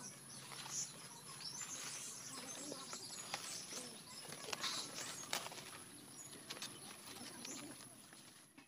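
Leafy foliage rustling as Bengal arum (kharkol) leaf stalks are picked by hand, with several sharp clicks of stalks snapping.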